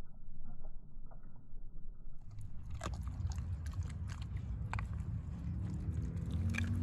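An American Staffordshire terrier eating its food, with irregular crunches and chewing sounds.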